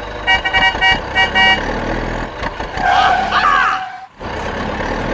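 A vehicle horn sound effect beeping four times in quick succession, followed about three seconds in by a short warbling sound that wavers in pitch.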